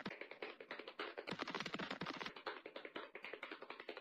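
Faint, rapid, irregular clicking: many small ticks a second without a break.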